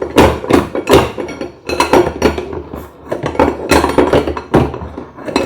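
Steel pry bars clanking and knocking against the washing machine's drum spider as it is levered free: a loud, irregular run of sharp metallic knocks.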